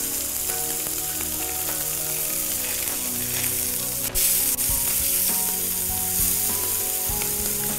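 Fish fillets and shrimp frying in hot oil in a frying pan, a steady sizzle.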